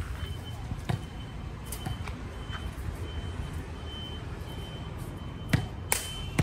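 Volleyball rally: a few sharp smacks of the ball being hit, the two loudest close together near the end. Under them is a low steady background din and a faint high beep that repeats about every half second.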